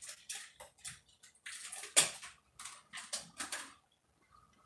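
Irregular clicks, knocks and rustles of objects being handled, with one louder knock about two seconds in and a quiet gap near the end.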